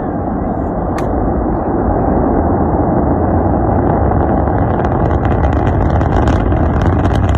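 Rocket roar: a deep, steady rumble that grows slightly louder, with crackling coming in about halfway through.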